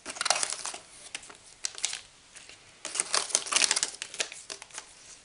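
Plastic parts bags and bubble-wrap packaging crinkling and crackling as they are handled. There are two bouts of crackling with a short lull near the middle.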